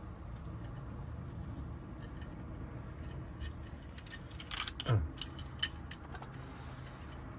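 Small metal clicks and rattles of lock wafers and tools being handled while rekeying a Honda door lock cylinder. They bunch up from about halfway through, with a short falling squeal at the loudest moment, over a steady low hum.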